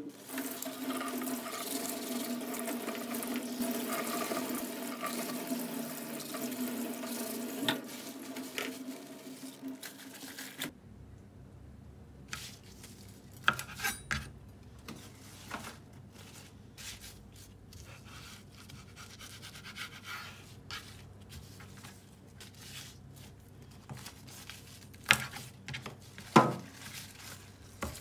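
Tap water running into a stainless steel sink as pumpkin leaves are rinsed in a mesh colander; about ten seconds in it stops abruptly. Then comes quiet knife scraping and tapping on a plastic cutting board as the pumpkin leaves are trimmed, with a couple of louder knocks near the end.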